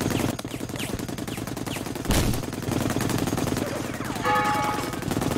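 Sustained automatic gunfire, shots in a rapid continuous stream, with one louder bang about two seconds in.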